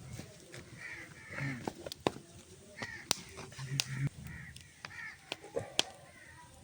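Crows cawing in a run of short repeated calls, with several sharp clicks or taps in between.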